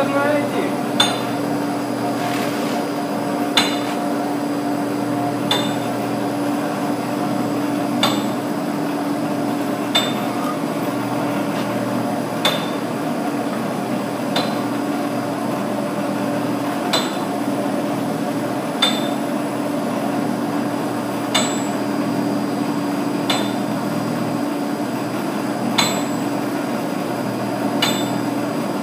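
Steady electric hum from the heat gun and the rig's drive, with a sharp knock about every two seconds from the home-made rig turning a concrete pipe on its rollers.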